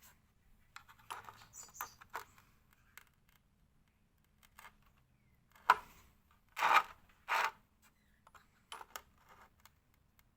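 Scattered clicks and short metallic clinks of small hardware being handled, with a sharp click a little past halfway and two louder clattery clinks just after it.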